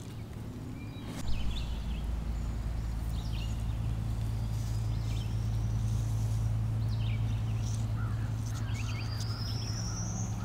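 Wild birds chirping and calling, with two long rising whistled notes, one near the middle and a clearer one near the end, over a steady low rumble.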